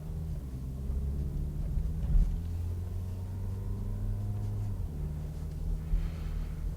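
Car interior noise while driving: engine hum and tyre road noise as a steady low drone, whose engine note shifts about five seconds in.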